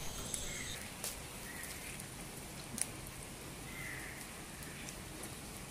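Faint steady hiss of rain, with a few sharp crackles from the open wood fire.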